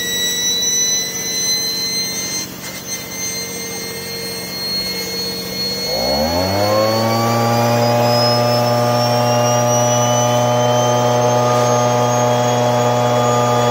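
Turbocharger on a wood-burning barrel stove whining, its pitch climbing slowly as it spins up, with a leaf blower feeding air into it. About six seconds in, the leaf blower engine revs up and then runs steadily and loud.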